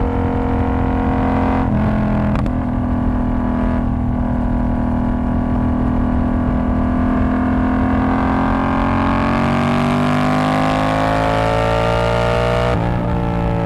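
Yamaha R7's parallel-twin engine through a straight-through TOCE exhaust with the dB killer removed, riding under load. The revs climb steadily for several seconds, then drop suddenly at an upshift near the end, with a brief dip about two seconds in.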